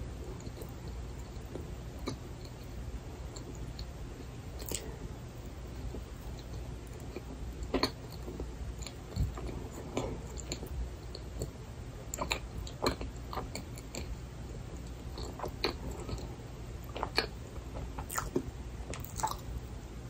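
Close-miked chewing of a frozen cream-filled milk bun: soft, wet mouth clicks and smacks at an irregular pace, sparse at first and more frequent in the second half.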